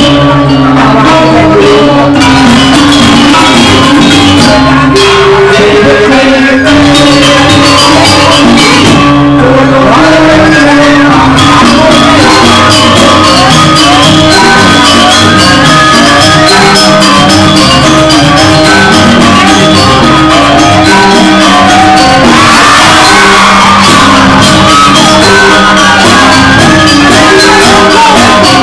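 Loud Balinese joged music with a fast, even percussion beat and held melodic notes, and a voice shouting and singing over it.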